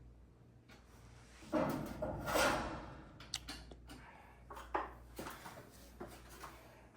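Metal hardware and hand tools being handled during garage door spring work: a loud scraping rattle about a second and a half in, followed by a series of separate sharp clicks and knocks.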